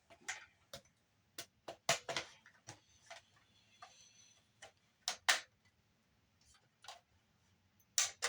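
Scattered sharp clicks and light knocks, about a dozen at uneven intervals, from the plastic and sheet-metal casing of a Samsung Blu-ray player being handled and worked open during a teardown.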